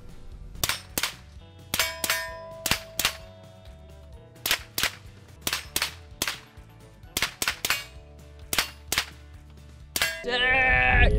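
Suppressed Zenith ZF-5 9mm carbine fired semi-automatically, about twenty shots in irregular singles and quick pairs, with a faint metallic ring hanging after some of them. A voice breaks in near the end.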